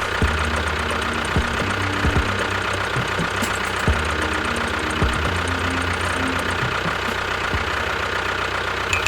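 A small motor running steadily with a continuous hum, with a few short knocks scattered through it.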